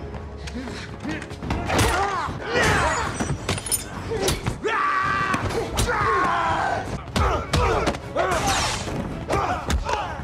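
Film fight sound: repeated punches and body thuds, with grunts and cries of effort, over background music.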